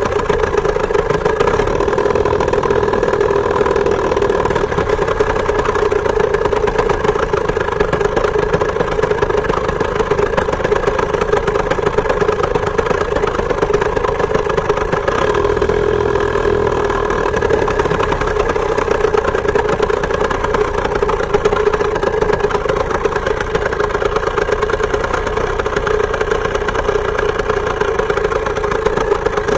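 Two-stroke chainsaw engine of a homemade moped running steadily at an even speed while riding.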